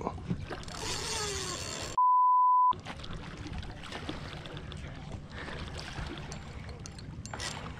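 Water splashing and sloshing beside a small boat as a big hooked redfish thrashes at the surface, over wind noise. About two seconds in, a single steady high beep of under a second replaces all other sound: a censor bleep.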